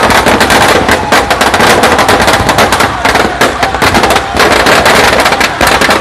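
Firecrackers packed into a burning Ravan effigy going off in a rapid, unbroken crackle of bangs, many a second.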